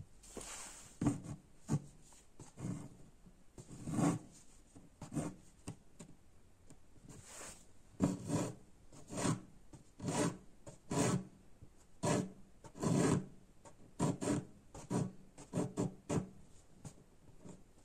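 Embroidery needle and cotton thread pushed and drawn through fabric stretched taut in an embroidery hoop: a long series of short rasping pulls at an uneven pace.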